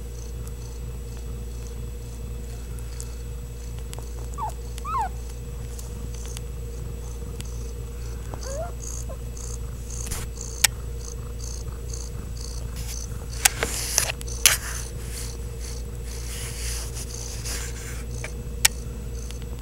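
Ragdoll cat purring with a steady low rumble, with a couple of faint short squeaks about five seconds in and again near nine seconds. A few sharp clicks, the loudest sounds, come near the middle and near the end.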